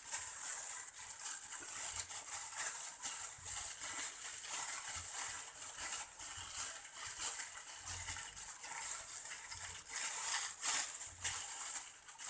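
Hands pressing and shaping a moistened bread slice around the stuffing into a roll: irregular soft rustling and light thumps over a steady high hiss.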